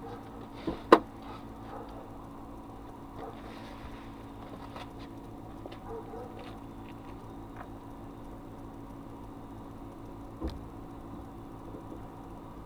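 Steady drone of a car driving, heard from inside the cabin, with scattered clicks and knocks. The loudest is a sharp knock about a second in, and another comes near the end. The driver takes the knocks for a loose piece of metal or the underbody guard catching on something, not the suspension.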